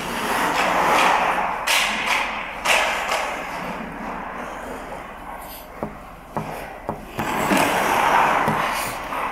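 Ice hockey skates carving and scraping across the ice, with sharp cracks of a stick hitting a puck twice early on and a quick run of knocks from pucks a few seconds later.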